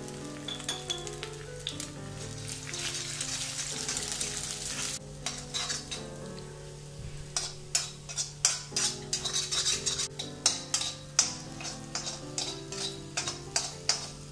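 Eggs sizzling in hot oil in an iron wok, then from about five seconds in a spatula scraping and knocking against the wok several times a second as the eggs are chopped and scrambled.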